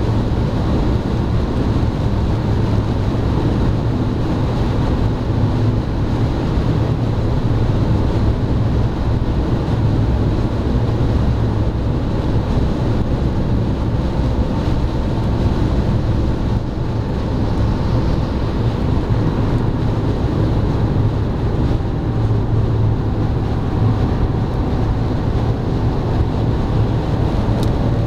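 Cabin noise of a BMW 330d cruising at motorway speed: steady tyre and wind noise with a low drone underneath, heard from inside the car.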